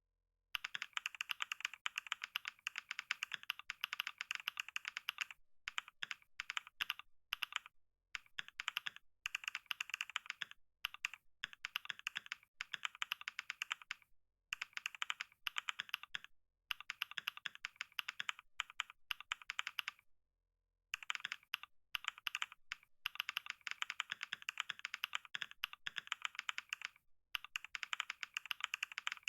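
Computer keyboard typed on fast and continuously, a rapid stream of key clicks. The runs break off now and then in pauses of under a second.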